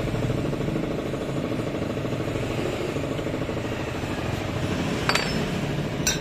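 Steady mechanical engine-like rumble, with two short metallic clinks about five and six seconds in.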